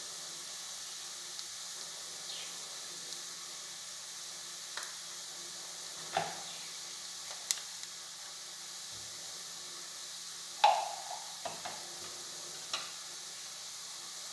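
Sliced onions sizzling steadily in oil in a non-stick pan, with a few sharp knocks of utensils against the pan, the loudest about two-thirds of the way through.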